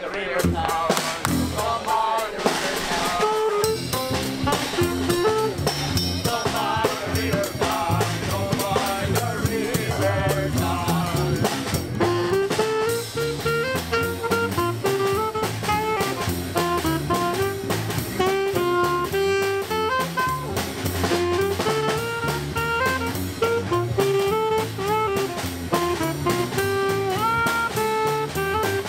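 Small jazz street band playing: a saxophone carries a melody of short stepping notes over a drum kit and double bass.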